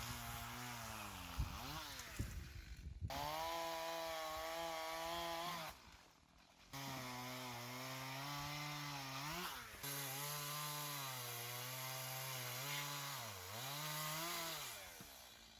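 Two-stroke chainsaw running at high revs while cutting, its pitch sagging and recovering several times as it bites into wood. It drops out briefly about six seconds in.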